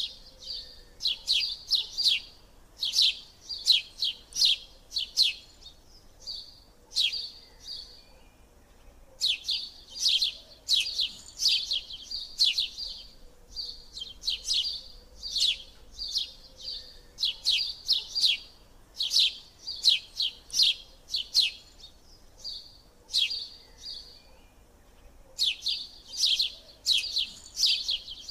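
A bird chirping in quick runs of sharp, high chirps, several a second, broken by short pauses.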